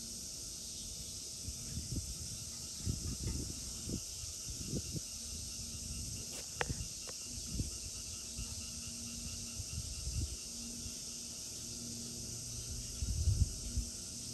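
A steady high drone of insects, with a few sharp taps about halfway through and scattered low thumps, the loudest near the end.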